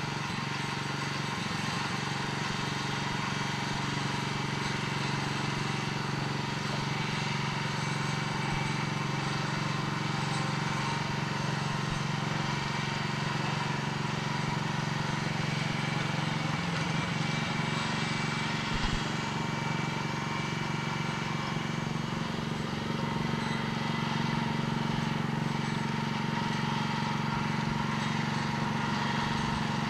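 A small engine running steadily at constant speed, with one brief knock about two-thirds of the way through.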